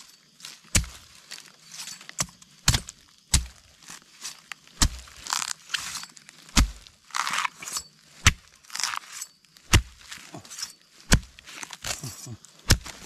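A knife chopping into a plant stem near the ground, with sharp strikes about once a second and some crunching, rustling noise as the stalk and leaves give way.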